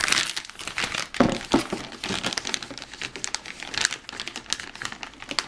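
Anti-static shielding bag around a motherboard crinkling and crackling as it is handled and its tape picked at, with two louder knocks a little over a second in.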